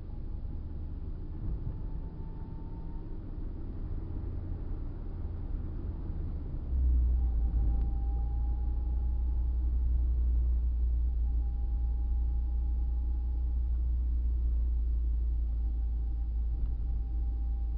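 A car driving, heard from inside the cabin: a steady low engine and road rumble that grows louder about seven seconds in, with a faint whine rising slightly in pitch several times.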